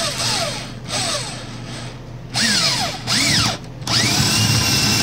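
Electric drill boring through the floor with a 13/16-inch paddle bit, run slowly in short stop-start bursts with the motor's pitch rising and falling. From about four seconds in it holds a steady speed with a constant whine.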